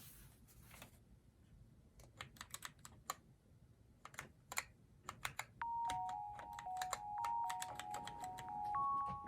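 Keys being pressed on a GamaKay K61 mechanical keyboard with Gateron switches: irregular sharp clacks, a few at a time, for several seconds. About five and a half seconds in, a simple bell-like melody of clear single notes starts alongside the clacks.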